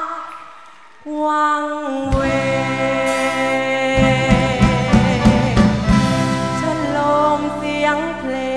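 Live luk thung band music with a male singer. A held, wavering sung note fades out at the start. After a short lull the band comes back in, with bass and drums joining and growing fuller about four seconds in.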